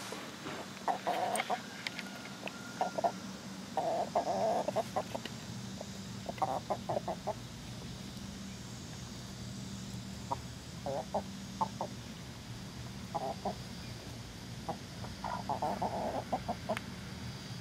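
Backyard hens clucking in short runs of quick calls every few seconds as they forage, over a low steady hum.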